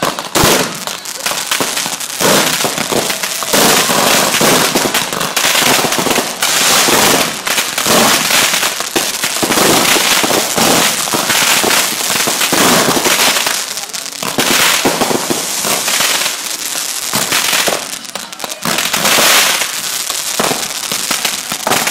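Fireworks going off in a loud, dense, continuous barrage of rapid pops and crackles.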